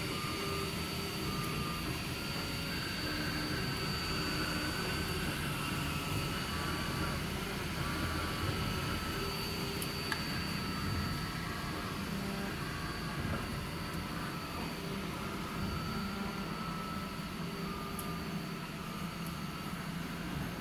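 MINGDA MD-16 desktop 3D printer printing: its stepper motors whine in short tones that jump in pitch with each move of the print head, over a steady hum from the cooling fans and a thin high whine.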